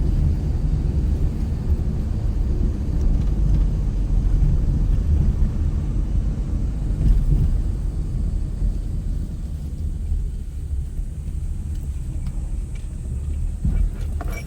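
Mitsubishi Pajero Mini kei 4x4 driving, a steady low engine and road rumble with some unevenness, easing slightly in the second half.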